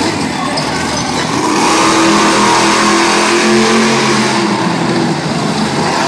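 Monster truck engine revving hard under load as the truck drives across the dirt, its pitch climbing about a second and a half in and holding high before easing slightly near the end.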